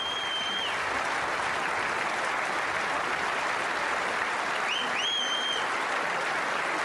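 Theatre audience applauding steadily. Two long, high, steady whistles from the crowd cut through the clapping, one at the start and one about five seconds in.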